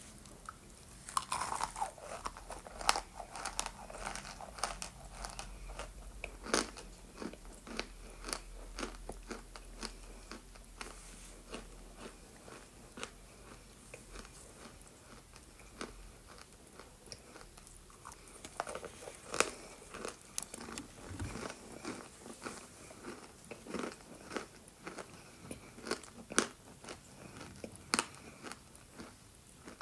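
Close-miked biting and crunching of homemade balls pressed from assorted chalk and clays, with many irregular sharp crunches and chewing between them.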